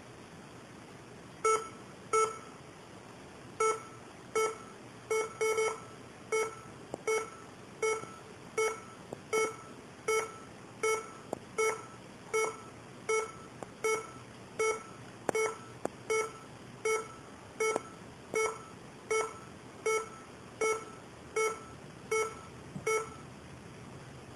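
Laptop error beeps, short and all on the same pitch, repeating about every three-quarters of a second after a few irregular ones at first: the laptop rejecting keys held down by a cat sitting on the keyboard.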